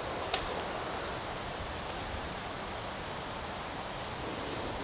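Wood campfire crackling: a sharp pop about a third of a second in and a few faint snaps over a steady low hiss.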